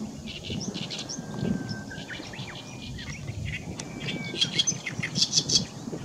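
Oriental reed warbler singing its harsh, chattering song in bursts of rapid repeated notes. The loudest, densest bout comes near the end. A low rumble runs underneath.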